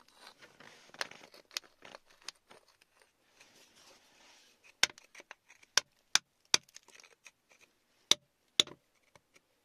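Hard objects in wet gravelly clay, a metal digging tool and stones or glass, giving soft scraping and then a string of sharp, irregular clicks and taps, spaced a fraction of a second apart, through the second half.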